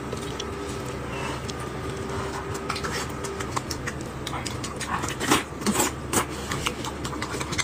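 Close-up wet chewing and lip-smacking while eating braised pork, a string of short clicky mouth sounds that grows busier after the first few seconds.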